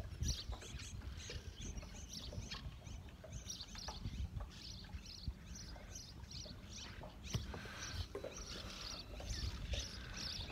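Water lapping against a small boat's hull, with a low steady rumble. Over it, short high falling chirps repeat two or three times a second.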